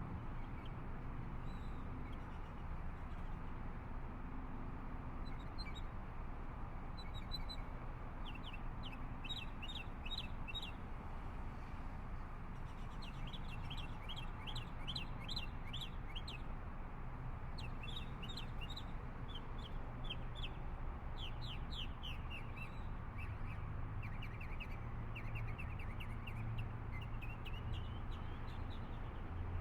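Birds chirping in quick runs of short, high notes, repeated again and again, over steady low background noise.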